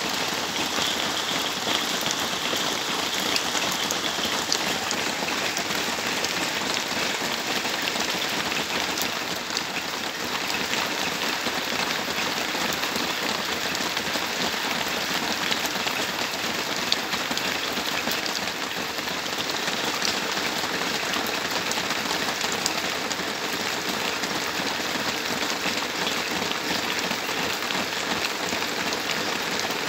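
Heavy rain falling steadily: an even hiss with scattered drops ticking close by.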